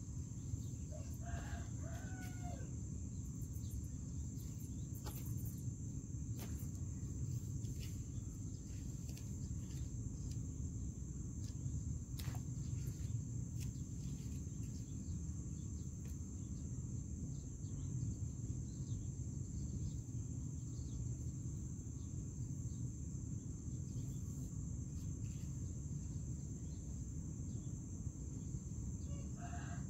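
A rooster crows once about a second in and again at the very end, each crow a pitched call that rises and then falls. Under it runs a steady low rumble and a constant high-pitched drone.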